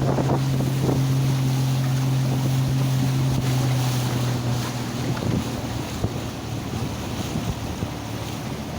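Boat motor running at a steady pitch, dropping in level and pitch about five seconds in as it eases off, with wind buffeting the microphone.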